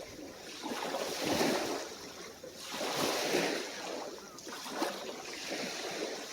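Small, calm waves breaking and washing up on a beach, swelling and ebbing about every couple of seconds.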